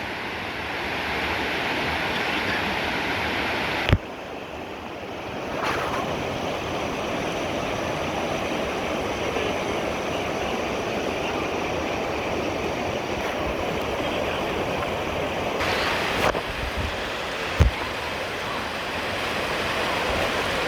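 Steady rush of falling or flowing water, a continuous even hiss, broken by sudden changes in level about four seconds in and again near sixteen seconds, with a short sharp knock at each of about four and eighteen seconds.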